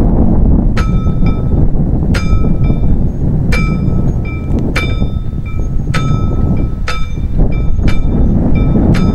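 Classic 'Trojlístek' warning bell of a mechanical level-crossing barrier ringing in single, unevenly spaced strokes, about one a second, each ringing on briefly. It warns that the barrier arms are being lowered. A steady low rumble lies underneath.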